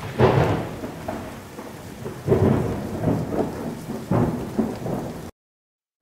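Thunderstorm: steady rain with three rolls of thunder, cutting off suddenly about five seconds in.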